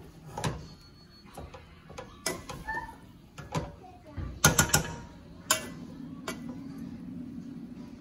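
A spatula scraping and knocking against a skillet while fried rice is stirred and turned, as a run of separate clicks and knocks with a loud quick cluster a little past the middle. A steady low hum comes in about two-thirds of the way through.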